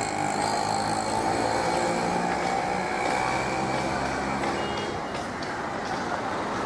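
Street traffic: vehicle engines running steadily on a city road, with a short high beep about five seconds in.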